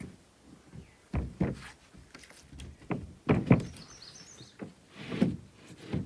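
Knocks and thumps of a sheet of OSB being handled and laid down on a wooden platform deck, mixed with footsteps on the boards. The knocks come irregularly, the loudest about three and a half seconds in.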